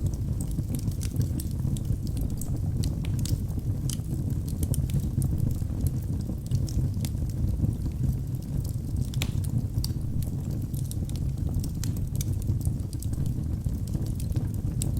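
Wood fire burning in a fireplace: a steady low rumble of flames under frequent small, sharp crackles and pops.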